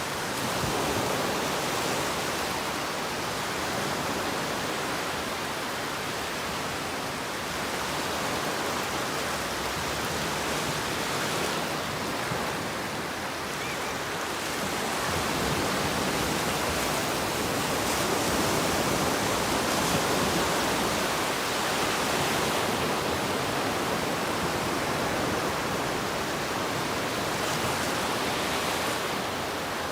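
Ocean waves washing onto a beach: a continuous rushing surf that slowly rises and falls in loudness.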